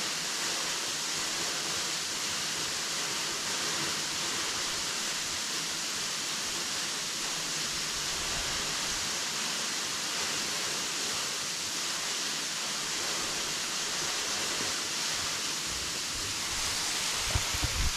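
Waterfall: a steady, unbroken rush of falling and splashing water. Near the end come a few low thumps.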